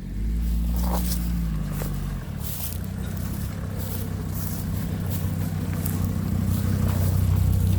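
A motor vehicle's engine running steadily, a low hum with a slight dip in pitch in the first couple of seconds, with scattered crackles from steps or brush close by.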